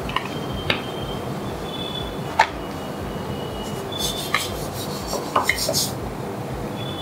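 Light knocks and clicks, a few with a brief high ring, from a rolling pin and hands working wheat parotta dough on a stone countertop, with a short stretch of scratchy rubbing partway through as the thin dough sheet is spread out by hand.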